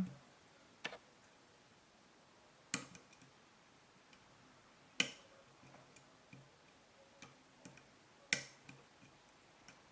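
Metal lock pick and tension tool working the pins of a dimple lock cylinder, imitating a Kaba 8, during single-pin picking: four sharp clicks a couple of seconds apart, the loudest near the end, with faint small ticks between them.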